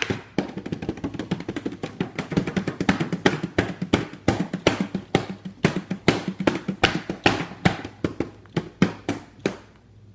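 Bongos played by hand in a fast, uneven drum run as a closing flourish to a spoken poem, stopping shortly before the end.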